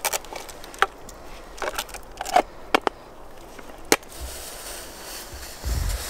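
Handling a small portable gas stove and its hard plastic case: sharp plastic clicks and knocks as the case is opened and the stove is taken out and set down on a log table, about seven separate clicks over the first four seconds. A low rumble comes in near the end.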